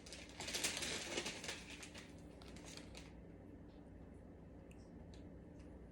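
Packaging of a meal-kit delivery box rustling and crinkling as it is opened by hand, for about three seconds, then only a few faint ticks.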